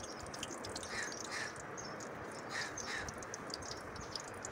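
Crows cawing: two pairs of short caws, one about a second in and another near three seconds in, over a steady faint hiss.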